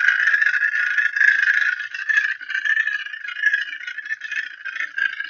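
Homemade magnetic stirrer running at its higher speed: a PC fan carrying neodymium magnets spins a magnetic stir bar on the bottom of a glass beaker of water, giving a steady rattling whir. About two seconds in the sound turns choppier and a little quieter.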